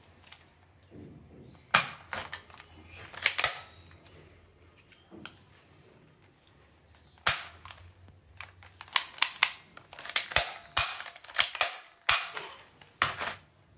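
Sharp plastic clicks and snaps from a spring-loaded soft-bullet toy pistol being loaded and worked. There are a few single clicks at first, then a quick run of them near the end.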